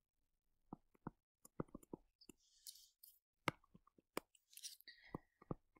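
Faint, scattered small clicks and taps from a stylus on a touchscreen as the teacher writes, with a couple of soft breaths about two and a half and four and a half seconds in.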